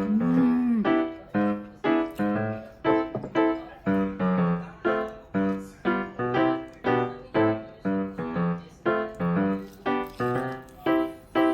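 Background piano music: a steady run of single notes, about two a second.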